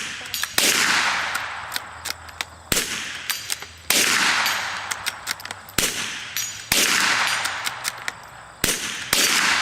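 Rifle shots from two shooters firing at a steel dueling tree. There are several loud shots a second or two apart, each trailing off in a long echo, with sharper, quicker cracks in between.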